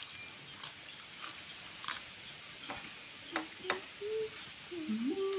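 Faint clicks and crackles of rice and crisp fried salted fish being eaten by hand from plates. A short call that rises and then falls comes near the end.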